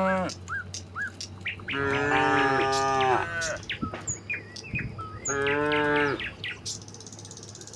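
Cattle mooing: one call trailing off just after the start, then two more long moos, the first of them with two voices overlapping. Small birds chirp briefly between the calls.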